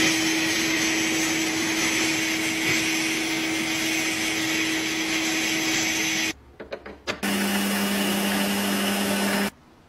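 Sandblasting gun hissing steadily against a brass lock escutcheon in a blast cabinet, with a steady hum underneath, stopping about six seconds in. After a few clicks, a lathe runs with a lower hum and hiss as an abrasive pad is held to the spinning brass part, then cuts off suddenly near the end.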